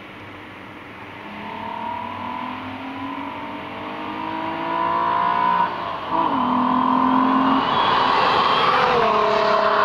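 VW Golf Mk3 VR6 2.8-litre engine accelerating, its pitch climbing steadily for about five seconds, then a break and drop in pitch about six seconds in, likely a gear change. After that it runs louder, with another step down in pitch near the end.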